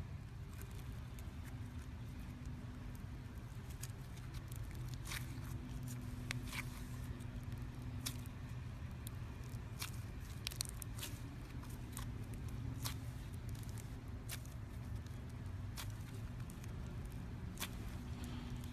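Slime being squeezed and stretched, making scattered sharp clicks and pops about once or twice a second, over a steady low hum.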